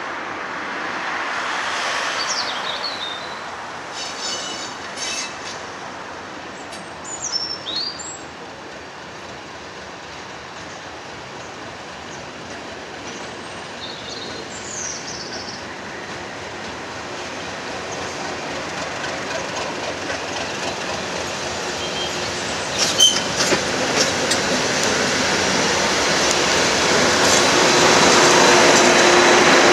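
BR Class 37 diesel locomotive with an English Electric V12 engine, approaching at low speed and growing steadily louder over the second half as it draws alongside.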